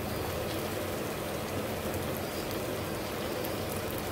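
A malpua deep-frying in hot Dalda ghee in a kadhai: a steady sizzle of bubbling fat, flecked with fine crackles.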